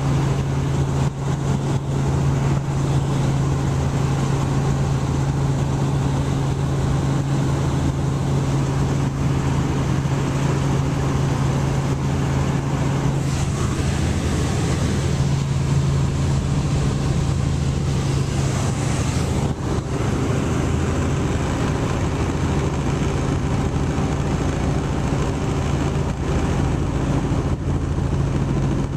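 Helicopter in flight heard from inside the cabin: a steady drone of engine and rotor with a strong low hum.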